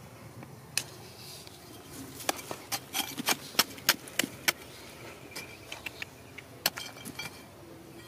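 A small flat metal blade chipping and scraping at a crumbly rock face, with sharp clinks of metal on rock and loose dirt and grit falling. The strikes come thick from about two to four and a half seconds in, then a few more near the end.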